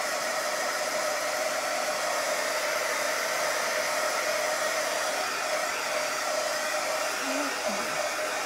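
A handheld craft heat gun blowing hot air in a steady whir with a faint steady hum, drying fresh paint on a wooden craft blank.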